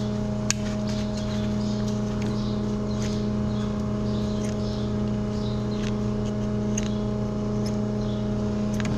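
A steady machine hum with several pitches, with a few short scrapes and clicks scattered through it from a cow's hoof being pared with hand tools.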